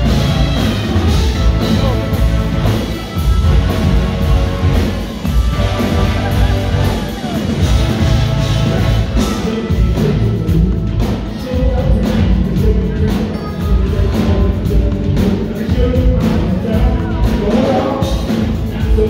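Live brass band music: trombones and trumpets playing over a pounding marching bass drum and low brass, continuous and loud.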